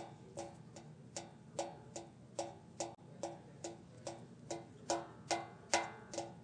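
Steady, even ticking, about two and a half ticks a second, each tick with a short pitched ring, like a clock or woodblock beat.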